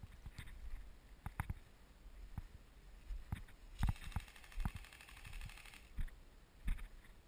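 Scattered soft knocks and clicks of handling and movement, with about two seconds of rapid, even ticking and hiss roughly four seconds in.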